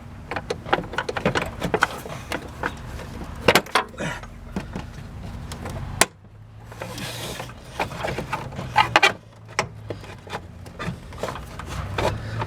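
Irregular clicks, knocks and light rattles of plastic and metal parts being worked by hand in a car's engine bay as the radiator fan assembly is wrestled loose. One sharp click comes about halfway through.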